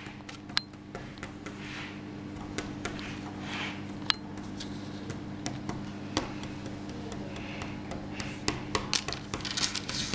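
Scattered light clicks and taps from hands handling a clear plastic bag on a tabletop, growing busier near the end with soft crinkling of the plastic, over a steady low hum.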